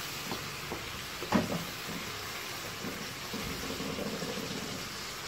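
Chicken pieces sizzling steadily as they fry in oil in a pan. A spatula stirs them, scraping and knocking against the pan a few times, loudest about a second and a half in.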